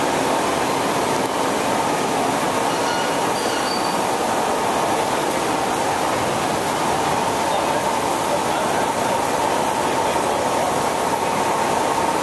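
CMI Folatex industrial dyeing machine running: dye liquor spraying and splashing inside the drum over a loud, steady machine noise with a faint steady whine.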